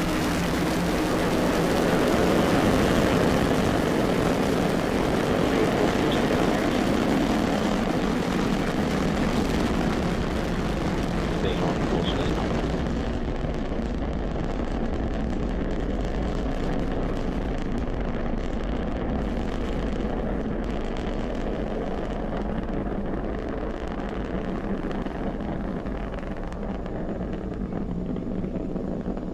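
Falcon 9 rocket's nine Merlin 1D first-stage engines at liftoff: a loud, continuous, rumbling rocket noise. It peaks a few seconds in, then slowly fades and loses its hiss about halfway through as the rocket climbs away.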